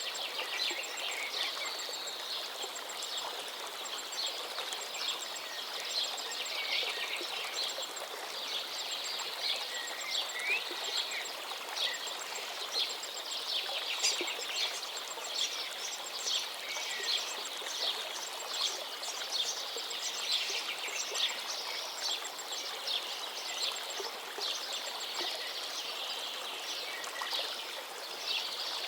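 Many songbirds singing and chirping over the steady rush of a forest river, the birds sounding in quick, overlapping phrases.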